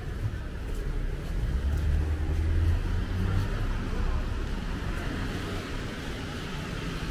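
Street traffic: a motor vehicle passes with a low engine rumble, loudest about two to three seconds in, over steady tyre and road noise.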